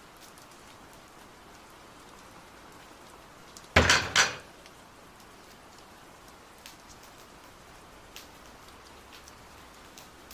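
Kitchen noises: a steady faint crackling hiss with scattered small ticks, and a short loud clatter of two or three knocks about four seconds in.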